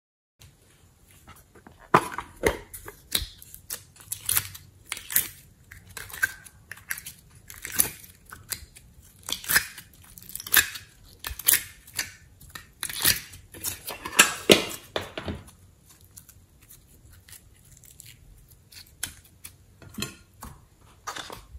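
Hands handling soft clay and plastic cases: sticky tearing and crackling as clay is pulled apart, with sharp clicks of plastic. The sounds come thick and fast, then thin out after about fifteen seconds.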